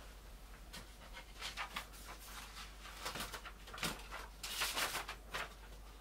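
Sheets of paper taped to a wooden drawing board being handled and lifted, rustling in irregular bursts, the longest rustle near the end.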